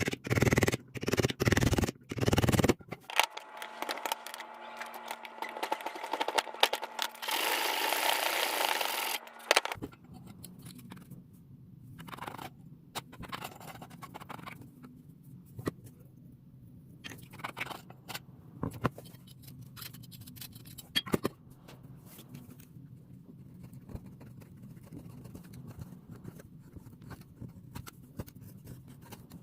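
Tool work on the farm fork: a run of sharp knocks, then a steady scraping hiss with a faint hum for about seven seconds, then scattered light taps and scrapes.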